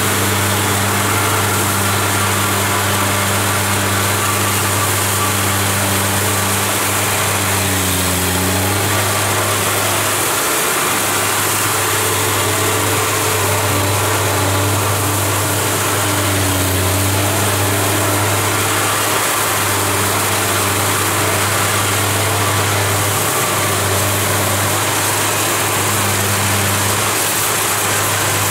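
Kubota DC70 Plus combine harvester running steadily under load, its diesel engine and threshing gear working as it cuts lodged rice. The engine note sags briefly twice under the heavier load.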